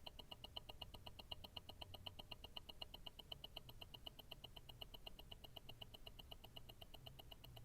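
Mechanical tourbillon watch movement from an Invicta Grand Octane ticking steadily, heard through a stethoscope: a faint, fast, even tick of several beats a second.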